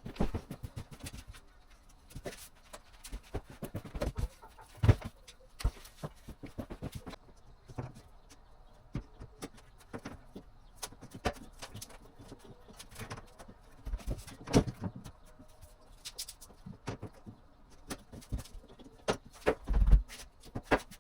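Laminate floorboards being shifted and clicked together on the floor: irregular knocks, taps and clicks, with a few heavier thumps.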